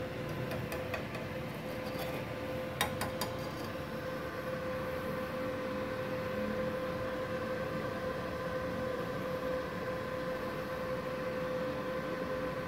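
Cooling fan of a MultiPro MMA 120 IGBT inverter stick welder running at idle: a steady hum over a light whirring noise, with a few faint clicks about three seconds in.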